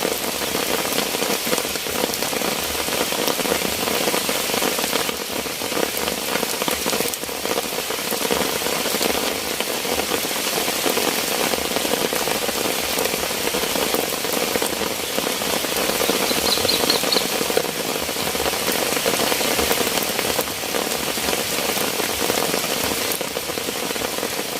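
Heavy tropical rain falling steadily, a dense, even patter on surfaces.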